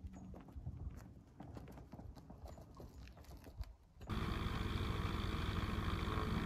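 Faint, irregular footsteps and small knocks on tarmac as a light aircraft is pushed by hand. About four seconds in, this cuts abruptly to the UrbanAir Samba XXL's engine running steadily, heard from inside the cockpit.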